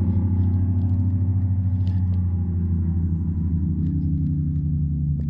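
An engine droning low and steady.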